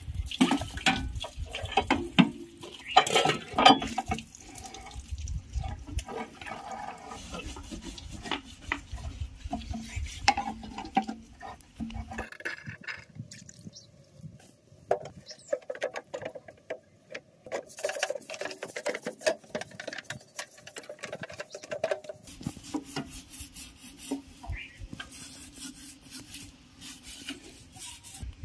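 Irregular metal clanks, knocks and scraping as an iron bar levers and strikes against the sheet-metal hood of a power tiller. The work goes quieter for a stretch in the middle.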